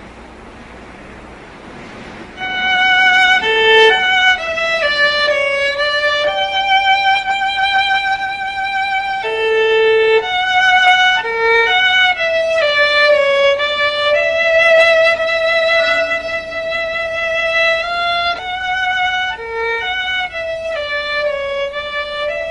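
Solo violin playing a slow melody of long held notes with vibrato. It enters about two seconds in, after a soft hiss.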